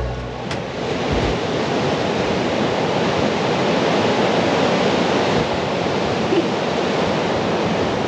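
Steady rush of water, an even noise that runs on without a break.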